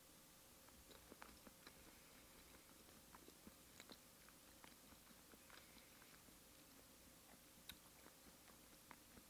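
Faint chewing of raw fish sashimi: soft, scattered wet mouth clicks.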